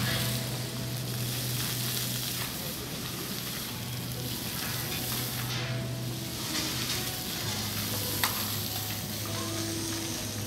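Fountain water jets spraying and splashing, a steady hiss, with one sharp click about eight seconds in.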